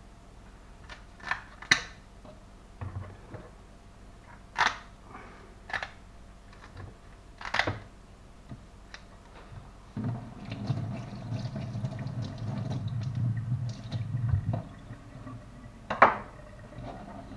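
Kitchen scissors cutting the fins off a whole trout over a stainless-steel sink: a handful of separate sharp snips and clicks spread out, the loudest about 16 seconds in. A low muffled rumble runs for several seconds in the middle.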